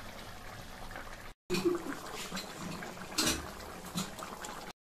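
Thick fish curry bubbling at a simmer in a kadai, a soft steady blubbing with faint pops. About a second and a half in the sound drops out for a moment, then comes back louder with a few scattered knocks.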